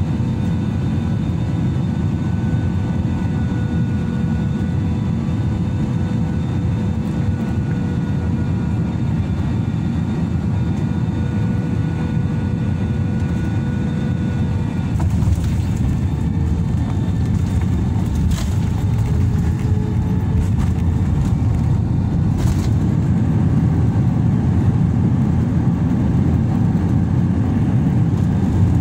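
Airbus jet airliner cabin noise on landing: a steady engine rumble and whine on final approach. A few sharp knocks come about halfway through as the wheels touch down. Then the engine noise swells a little during the landing roll.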